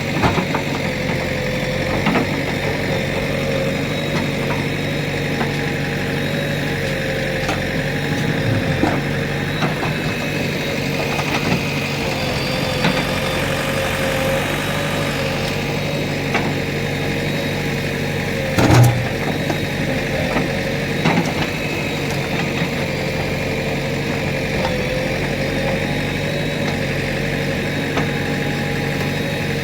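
JCB 3DX backhoe loader's diesel engine running steadily, with a few short knocks scattered through, the loudest about two-thirds of the way in.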